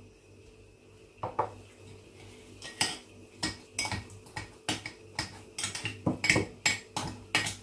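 A metal spoon knocking and scraping against a glazed ceramic mortar while a thick solid-shampoo paste is stirred. One knock about a second in, then repeated clinks, two or three a second, from about the third second on.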